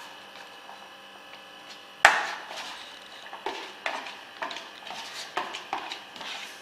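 Kitchen clatter: a sharp knock about two seconds in, then a run of smaller knocks and scrapes, two or three a second, as onions are added to marinating chicken in a vessel and mixed.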